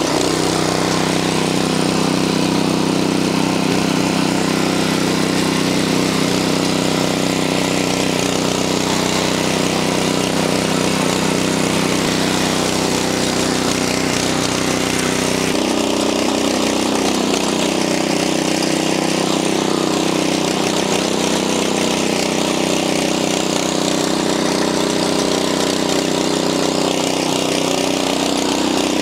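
Viper 212 cc single-cylinder engine of an Earthquake Victory rear-tine tiller running steadily under load as the rear tines dig deep into garden soil, with a slight change in tone about halfway through.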